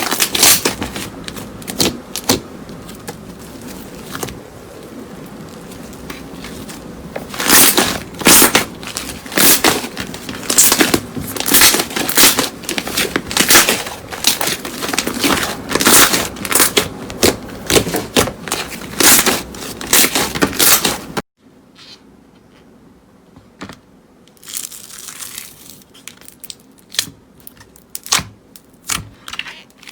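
Slime being squeezed and pressed by hand, crackling and crunching in a steady squeeze-and-release rhythm. About two-thirds of the way in it cuts to a quieter clip of scattered pops and clicks.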